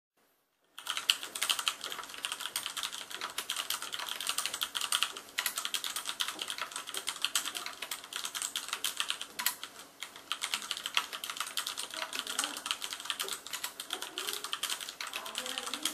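Fast, continuous typing on a Deck Hassium Pro mechanical keyboard with Cherry MX Brown tactile switches, starting about a second in. There are brief let-ups twice along the way.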